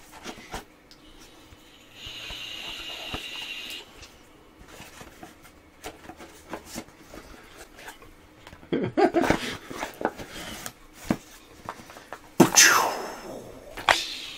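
Two men laughing under their breath and snorting, with a short steady hiss about two seconds in and a louder burst of laughter near the end.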